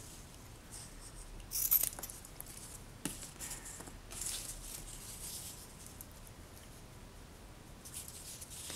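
Scissors snipping lengths of cloth binding tape off a roll, with light rustling as the tape is handled: a few short, faint snips, the sharpest nearly two seconds in.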